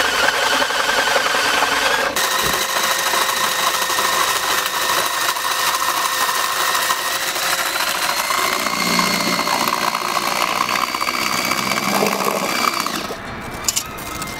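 Electric drill spinning a paddle mixer through thick paint in a metal bucket: a steady motor whine that rises slightly in pitch partway through. The motor stops near the end, followed by a few clicks.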